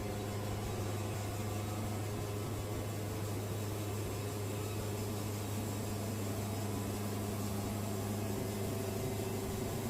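Wood-Mizer portable band sawmill running steadily, a constant engine drone that holds one pitch throughout.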